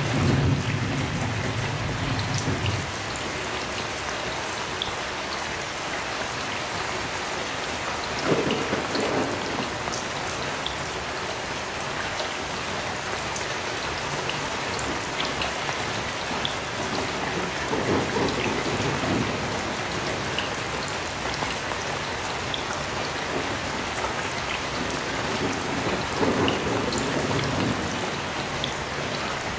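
Heavy rain falling steadily, with individual drops pattering, under distant thunder: a low rumble dies away in the first few seconds, and three shorter rolls of thunder come about nine seconds apart.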